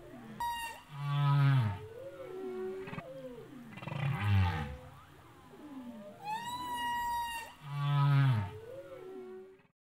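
Whale-like calls: moaning tones that glide up and down, broken by three loud, low, falling booms about three and a half seconds apart. Twice, near the start and about six and a half seconds in, comes a high call that rises and then holds steady.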